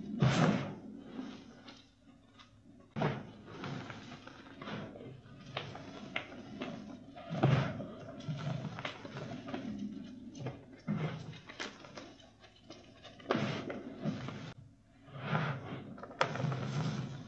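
Pieces of reformed chalk crunching and crumbling as they are squeezed and broken in the hands, with soft powdery rustling between several louder crunches.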